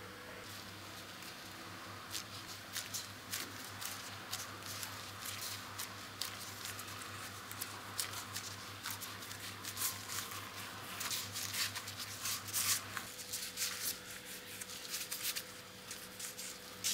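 Disposable plastic gloves crinkling and rustling as hands press and roll mashed potato around a cheese stick, with soft squishing of the potato. A quick, uneven stream of small crackles and clicks, busiest about two-thirds through, over a faint steady low hum.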